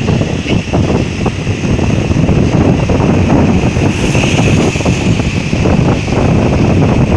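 Wind rushing and buffeting on the microphone of a moving motorcycle, loud and uneven, with the motorcycle's running and road noise beneath it.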